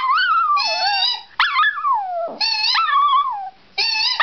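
Small shorkie dog howling in a run of short, wavering howls that rise and slide down in pitch, set off by and mixed with a person's high-pitched squealing.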